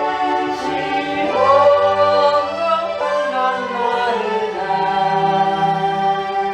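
Choir singing a gospel hymn, with long held chords.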